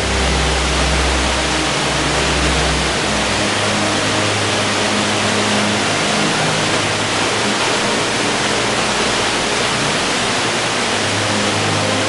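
Steady rush of a waterfall, an even roar of falling water, with low sustained tones underneath that change pitch every second or two.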